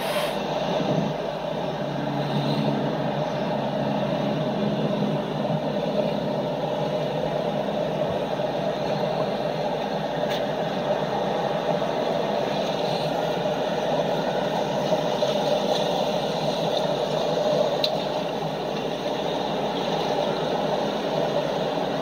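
Steady rushing of the fast Niagara River current running past the pier, an even, unbroken noise.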